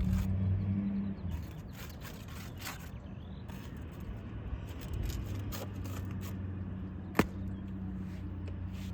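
A metal hand tool scraping under asphalt shingles to break their sealant strips: short scraping strokes and clicks, with one sharp click about seven seconds in. A steady low hum runs underneath.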